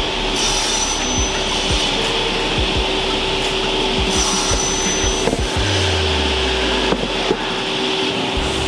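Steady whir of workshop machinery, with light background music under it and a few knocks as wooden drawer boxes are handled near the end.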